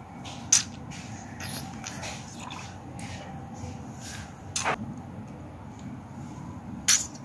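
Small plastic toy parts being handled, giving three sharp clicks with a few fainter taps between them, over a faint steady background.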